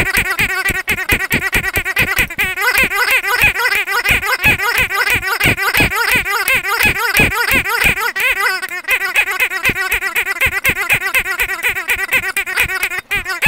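Pink squeaky dog toy squeezed over and over by hand, giving quick high squeaks several times a second without a break.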